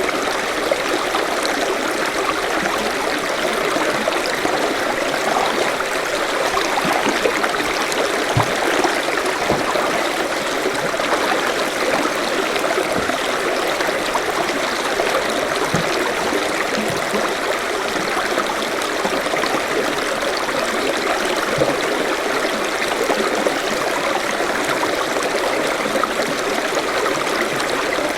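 Forest stream flowing steadily over rocks, a continuous rushing babble with small gurgles.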